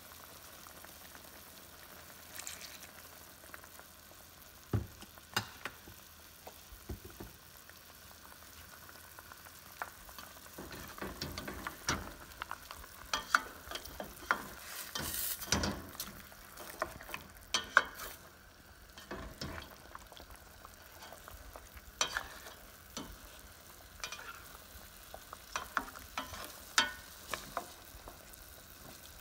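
Chicken adobo simmering and sizzling in a stainless steel pan while a plastic spoon stirs and turns the pieces, with many scattered knocks and scrapes of the spoon against the pan, busiest around the middle and again near the end.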